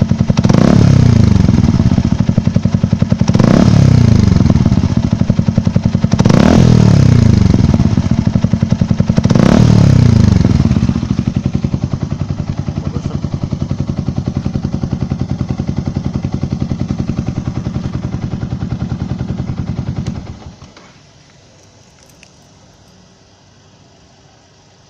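Yamaha R15 single-cylinder four-stroke motorcycle engine blipped four times, each rev rising and falling back about 3 seconds apart, then idling steadily, during a carbon-cleaner treatment. It shuts off about 20 seconds in.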